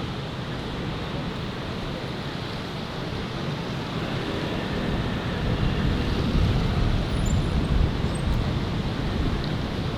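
City street traffic noise, with a vehicle passing that grows louder from about four seconds in and eases off near the end.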